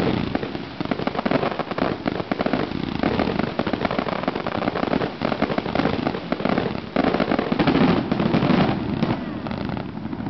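Fireworks display with several shells, comets and fountains firing at once: a dense, unbroken barrage of rapid pops and crackling.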